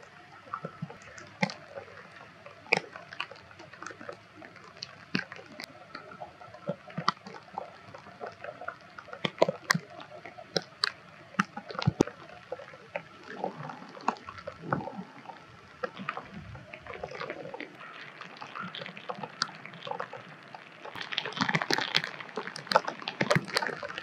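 Water dripping and splashing: irregular sharp drips scattered throughout, with a denser spell of splashing near the end.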